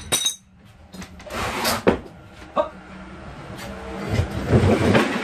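Heavy wooden table-saw table being tipped over and set upright on a tiled floor: a sharp click, scraping and a couple of sharp knocks, then the loudest part near the end, a low rumbling clatter of knocks as the table comes down onto its legs.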